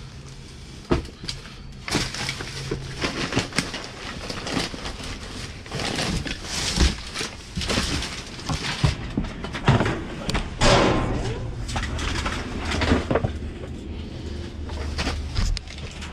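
Rummaging through trash in a dumpster: rustling with repeated knocks and clatters of things being shifted and dropped.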